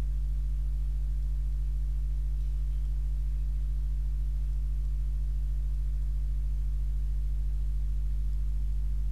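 Steady low electrical hum, a buzzing tone with a stack of overtones, unchanging throughout.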